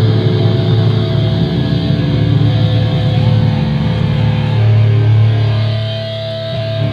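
Live screamo band playing loud, distorted electric guitar and bass, with long held notes over a heavy low drone.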